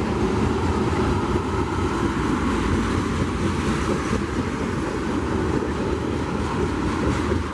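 A train rolling past close by, a steady, loud rumble of wheels and cars with no distinct clicks.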